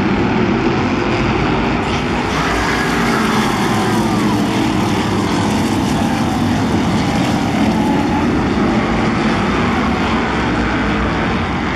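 Engines of a field of modified stock race cars running at racing speed close past the grandstand, a dense steady roar with passing pitches that rise and fall.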